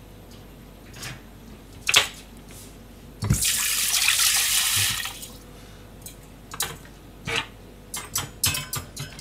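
Kitchen tap turned on about three seconds in, water running into a stainless-steel sink for about a second and a half while a hand is rinsed under it, then shut off. Short knocks before it, and quick clicks and rubs near the end as a cloth wipes the stainless counter.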